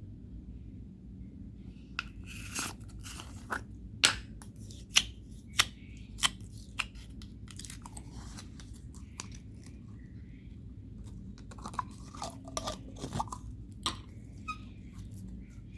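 Homemade slime being squeezed and worked by hand, giving sharp crackling clicks and pops in two spells, over a steady low background hum.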